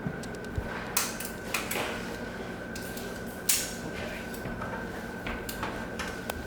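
Scattered knocks and clatters of kitchen utensils and a pot being handled, the sharpest about three and a half seconds in, over a steady hum.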